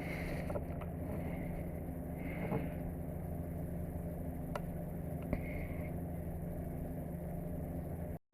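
A steady low engine hum, like a motor idling, with a few faint single clicks over it.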